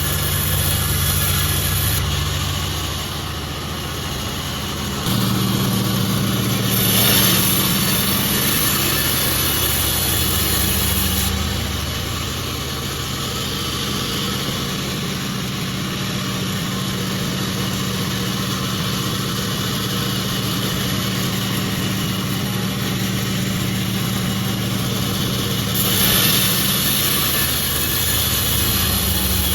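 Pandan36 sawmill running with a steady machine hum. A brighter hissing stretch comes about seven seconds in and another near the end, as the saw works through jackfruit wood.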